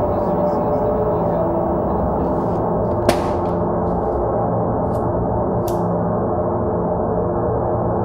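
Dark ambient film score: a steady, gong-like drone of many sustained low tones. A single sharp hit about three seconds in stands out above it, and two fainter clicks follow a few seconds later.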